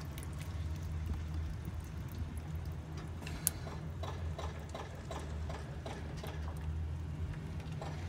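Used motor oil glugging as it is poured through a plastic funnel into a plastic jug, in a regular patter of about three glugs a second that is clearest in the middle, with one sharper tap. A steady low hum runs underneath.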